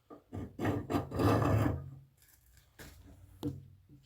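A clamp being loosened and taken off the soldered radiator: a few scraping, rasping rubs of metal over the first two seconds, then lighter handling and a short knock.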